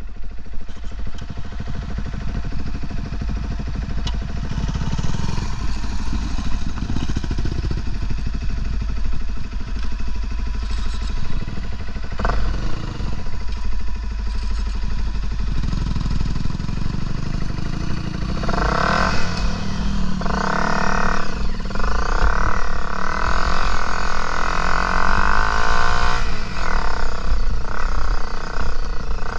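Dirt bike engine running while riding off-road, getting noticeably louder about two-thirds of the way through.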